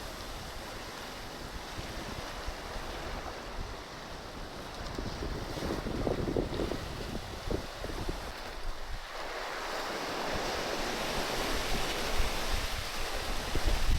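Sea waves washing, with wind rumbling on the microphone. About two-thirds of the way through, a louder wash of surf builds and carries on.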